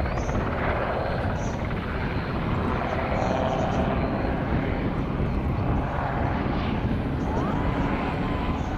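Westland Sea King helicopter's rotors and twin turboshaft engines running, a steady, even rotor beat.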